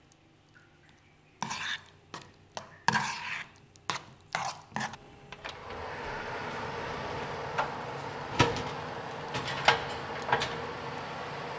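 Kitchen utensils and cookware clattering and knocking several times, then a steady hiss with a few sharp clicks from about five and a half seconds in, which ends abruptly.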